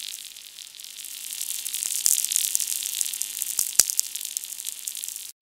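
Audio from a VLF E-field receiver: crackling static hiss with a steady buzz of mains-hum harmonics and a few sharp clicks about two to four seconds in. The crackle is rain striking the receiver's antenna, and the hum is electrical interference picked up from the nearby power supply. It cuts off suddenly near the end.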